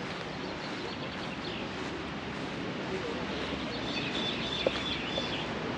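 Steady rushing of river rapids, with a bird chirping from about three seconds in.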